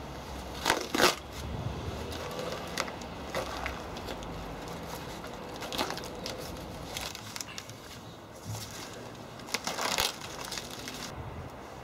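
Cardboard and tape being torn and peeled off a set concrete casting by hand, in short irregular ripping and crackling bursts, loudest about a second in and again near the end.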